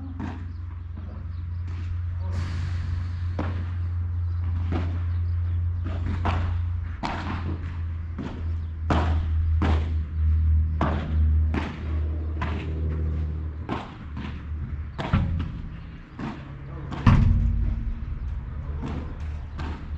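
Padel rally: the ball is struck again and again by padel rackets and bounces off the court and glass walls, giving sharp knocks every half second to a second, the loudest about 17 seconds in, over a steady low rumble.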